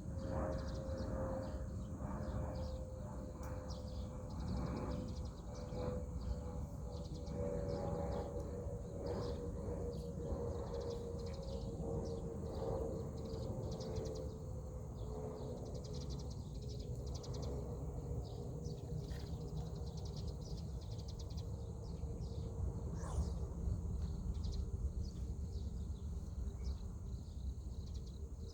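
Outdoor rural ambience: a steady low rumble, many small high chirps from birds and insects, and a faint distant drone that slowly falls in pitch.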